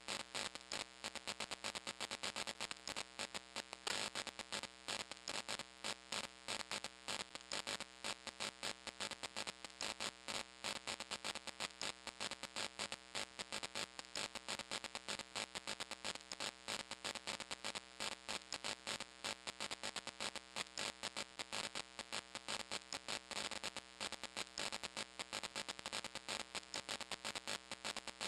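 Steady buzzing hum with a fast, even crackle throughout, unchanging over the whole stretch.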